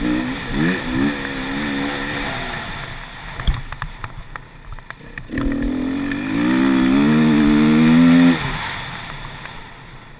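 Off-road motorcycle engine under throttle on a dirt track, its pitch wavering. It eases off for about two seconds, then is opened up hard for about three seconds with the pitch rising, and is shut off abruptly near the end, the sound dying away.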